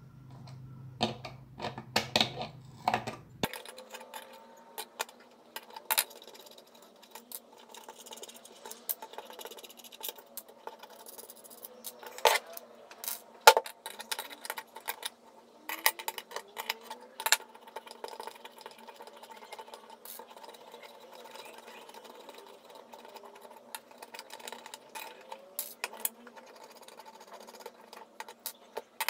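Pliers working loose the metal hex nuts on an audio interface's jack sockets, with small metal nuts and washers clinking as they are set down on a tabletop: irregular sharp clicks and taps, a few much louder than the rest.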